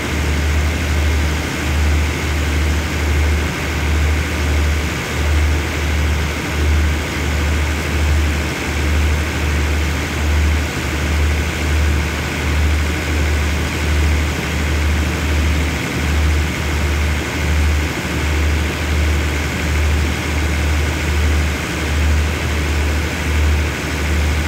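Diesel engines of a standing passenger train idling: a steady low hum that swells and dips roughly once a second, with a faint steady whine above it.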